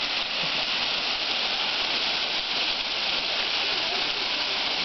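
Steady, even rush and hiss of the Huk waterfall, a 15-metre mountain-stream waterfall, falling water with no change in level.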